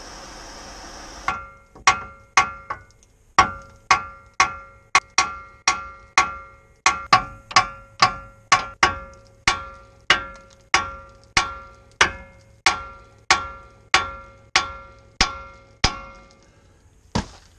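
A hammer striking the steel front suspension of a Chevy P30 chassis again and again, about two blows a second, each with a short metallic ring, then one last blow near the end. The blows are meant to shock the ball joint stud loose from the steering knuckle so the old front coil spring can be removed.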